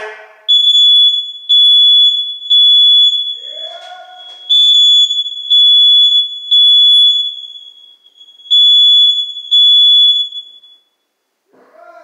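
Hard-wired smoke detector sounding its alarm as it is tested after being installed: a loud, high-pitched beep in the temporal-three pattern, three half-second beeps, then a pause, repeated three times before it stops near the end.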